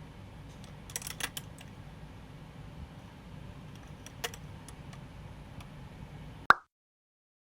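A few faint clicks and taps over a low room hum, then a short sharp click about six and a half seconds in, after which the sound cuts to dead silence.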